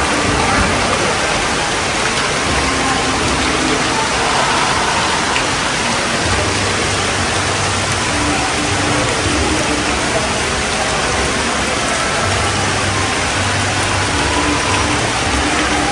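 Steady rush of water from small fountain jets spraying and splashing into a shallow indoor pool.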